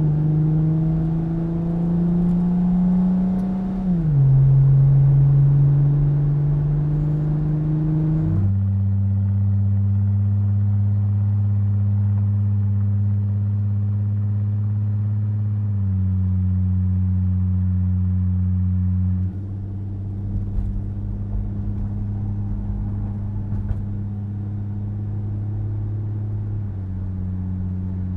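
Ford Mustang 4.0-litre V6 running through a Nxt Step Performance stainless axle-back with bullet-style mufflers. It is held at steady revs, with the pitch falling once and then jumping abruptly a few times. The deep exhaust tone is heard in turn inside the cabin, where it drones, and at the tailpipe.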